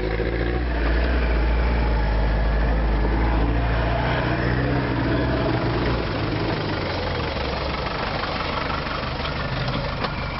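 Daihatsu Rocky 4x4's engine running at low revs as it crawls across grass and noses down into a muddy rut, a steady low drone that eases slightly about halfway through.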